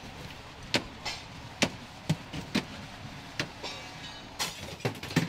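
A fire engine running steadily, with about seven sharp, irregularly spaced knocks and clanks over it.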